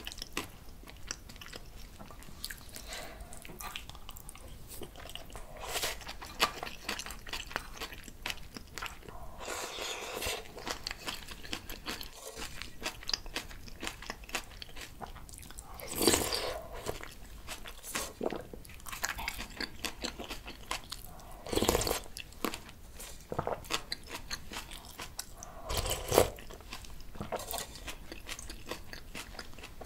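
Close-miked eating sounds: chewing and small mouth clicks as a woman eats doenjang jjigae (soybean paste stew) with rice, with louder moments about halfway through and twice more toward the end.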